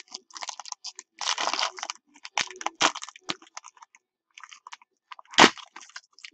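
A trading-card pack being torn open and its cards handled: irregular crinkling and crackling of the wrapper, with one sharp snap about five seconds in.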